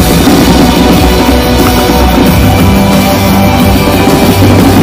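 Loud rock music with a drum beat, played with a fireworks display.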